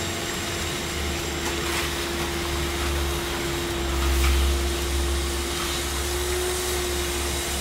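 A steady machine hum with one constant mid-pitched tone, like a motor running, over a low rumble that swells and eases, typical of wind on the microphone.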